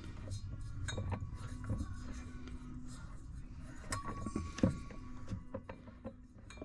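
Light metallic clinks and clicks as an R290 propane refrigerant bottle with a brass adapter is shifted and turned on a digital refrigerant scale's platform, the loudest knock about four and a half seconds in, over a low steady hum.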